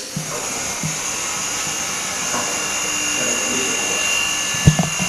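Mini OCA laminating and bubble-removing machine running: a steady hiss with thin high whining tones that grows slightly louder, and a couple of sharp knocks near the end.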